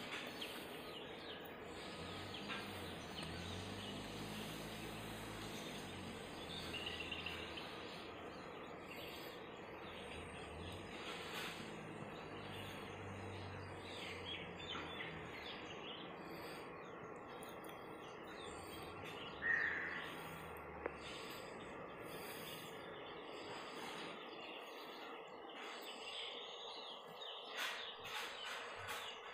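Outdoor ambience: steady background noise with faint bird chirps, one short clear chirp about two-thirds of the way through.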